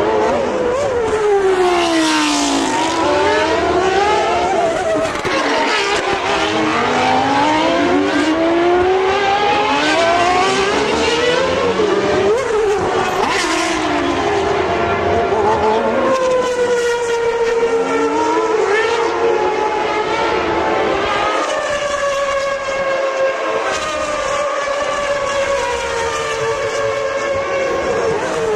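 Several 1992 Formula One cars' high-revving racing engines braking, downshifting and accelerating through a corner, their notes sliding up and down and overlapping as they pass. Over the second half a steadier high engine note holds at nearly constant revs, sinking slightly.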